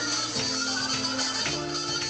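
Band music: held bass and chord notes that change about once a second, over a light, steady percussion beat.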